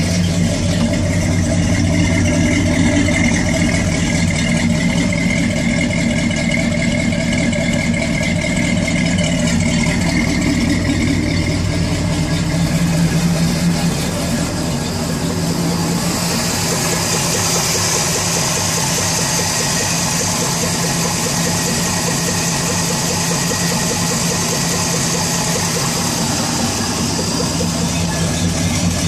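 Ford Bronco's carbureted engine idling steadily. About halfway through, a steady high hiss joins the engine note.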